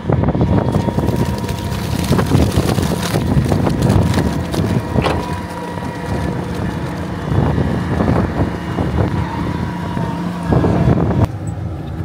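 Manure spreader unloading onto a pile behind a running tractor: a steady machine hum under a dense clatter of knocks. The sound drops off about a second before the end.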